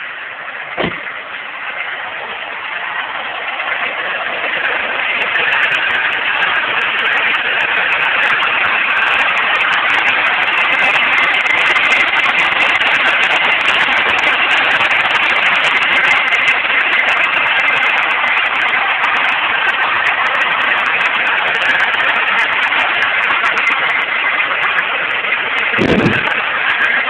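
2008 Dodge Caliber's engine running, growing louder over the first several seconds and then holding steady, with a faint high whine through it. The owner suspects a bad alternator behind the car's knocking at idle and whining on acceleration. A sharp click comes about a second in, and a short thump near the end.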